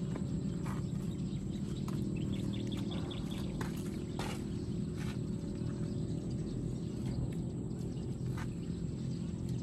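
Open-air ambience: a steady low rumble, with a short run of quick high bird chirps about two and a half seconds in and a few scattered light clicks.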